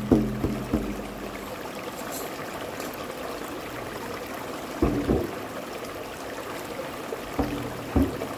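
Stream running over rocks with a steady rushing hiss. A large frame drum is struck by hand a few times, each stroke ringing in low tones: several in the first second or so, a pair about five seconds in, and a few more near the end.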